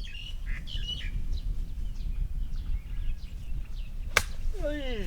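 Small birds chirping over a low steady outdoor rumble, then a single sharp click about four seconds in as a golf club strikes the ball. A voice calls out with falling pitch just after.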